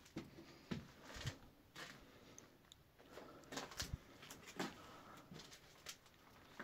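Faint, irregular footsteps and scuffs on a dusty floor, about one to two a second.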